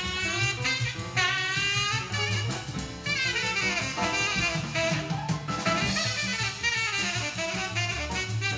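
Jazz quartet recording played back through Estelon XA floor-standing loudspeakers: a saxophone playing quick runs that climb and fall over walking bass and drum kit.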